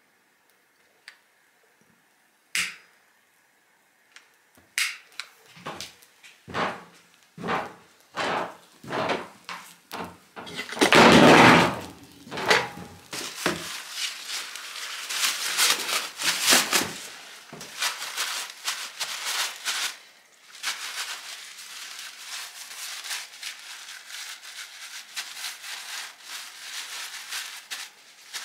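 A few sharp clicks, then a run of knocks about every half second. Around eleven seconds comes a loud ripping of paper towel, followed by steady rustling and crinkling of paper towel as it is handled and used to wipe small raw fish.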